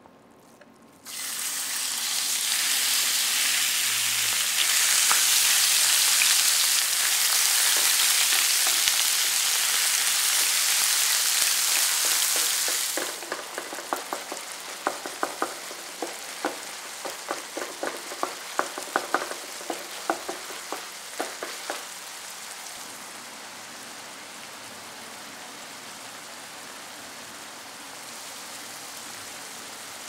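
Ground pork dropped into hot oil in a nonstick frying pan, starting to sizzle strongly about a second in. After about twelve seconds the sizzle eases and a wooden spatula taps against the pan over and over as the mince is broken up and stirred, leaving a softer steady sizzle near the end.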